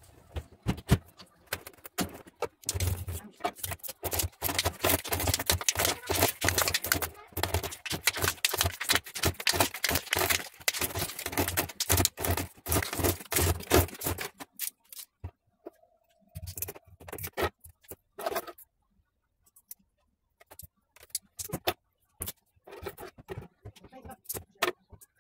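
Hands scraping and tapping on a freshly cast cement vase and its mold: a dense run of rapid clicks, scrapes and rattles for about twelve seconds, then only scattered clicks with quiet gaps.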